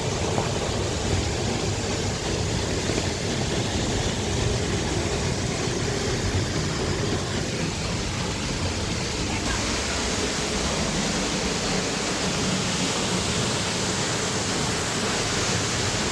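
Waterfall rushing as a steady, even roar of falling water, its tone brightening slightly about nine seconds in.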